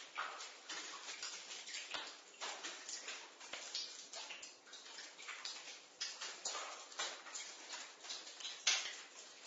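Water dripping in a basement, drops falling irregularly about two or three times a second, some of them smeared out by echo. One drop near the end is louder than the rest.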